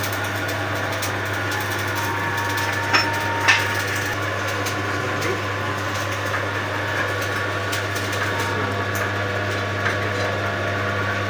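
Steady electric motor hum of machine-shop equipment, with a few sharp metal clicks about three seconds in, a half second later, and again near the end, as the four-jaw lathe chuck and workpiece are handled.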